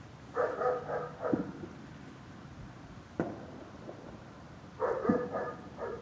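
A dog barking in two short bouts of about a second each, with sharp cracks of gunshots in between.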